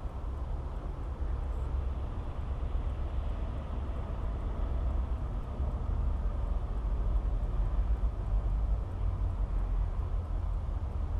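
Steady low outdoor rumble with a light hiss over it, even throughout, with no distinct events.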